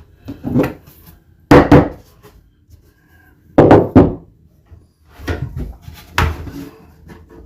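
Irregular wooden knocks and bumps of plywood cabinet panels being handled and tapped together, about five of them, loudest a couple of seconds apart.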